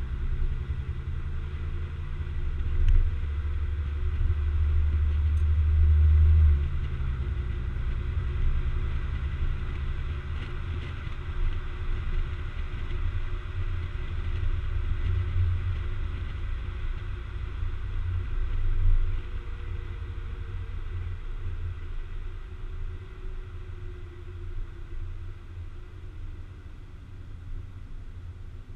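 2012 Volkswagen Passat 3.6-litre VR6 running through Magnaflow mufflers, heard right at the tailpipe: a low exhaust rumble as the car drives slowly. It swells for a couple of seconds and then drops back sharply about six seconds in.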